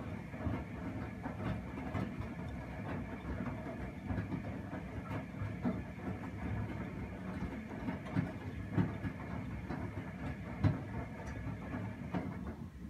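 Primus P6 commercial washing machine in the wash phase of a 95 °C boil wash: the drum motor runs steadily while the wet laundry tumbles and sloshes in sudsy water, with irregular thuds as the load drops. Near the end the motor's drive sound cuts off as the drum stops turning.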